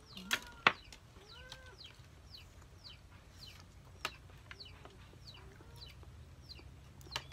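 Chickens clucking in the background, with short, high, falling chirps repeating over and over. A few sharp clicks cut in, the loudest about half a second in.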